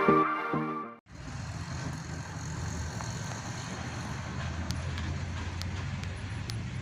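Electronic intro music ends abruptly about a second in, giving way to a heavy truck's engine running with a low, steady rumble amid slow-moving road traffic. A few faint ticks sound near the end.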